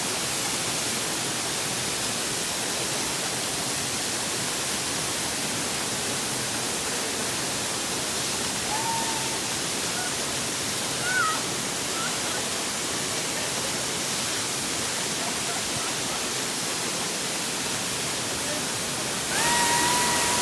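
Waterfall: a steady rush of falling water. A few faint short pitched sounds come through it around the middle, and a steady higher tone starts just before the end.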